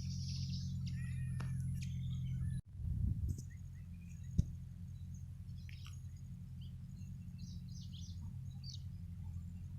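Small birds chirping and calling in short high notes over a steady low rumble. The sound drops out briefly a little under three seconds in, then comes a dull thump, and a sharp click follows about a second and a half later.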